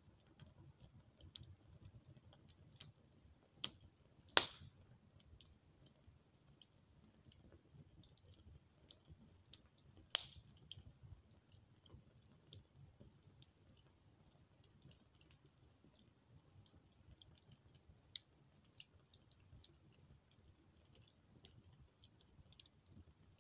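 Wood fire in a fire bowl crackling, with scattered sharp pops. The two loudest come about four and ten seconds in, over a steady high hiss.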